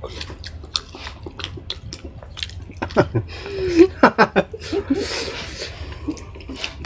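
Close-up wet chewing and smacking mouth clicks of someone eating. A short hummed 'mm' comes about halfway through.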